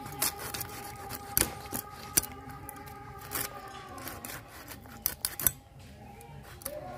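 Small hilsa being cut into pieces on a boti, the upright fixed blade of a Bengali kitchen: sharp cutting and scraping sounds at irregular intervals as the fish is pressed through the blade.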